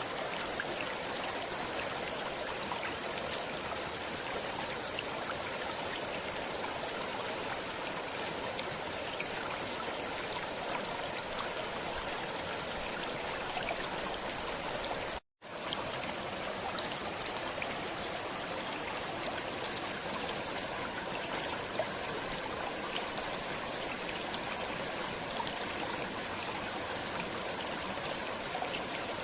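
Stream water running steadily over rocks, an even rushing and trickling. The sound cuts out completely for an instant about halfway through, then resumes unchanged.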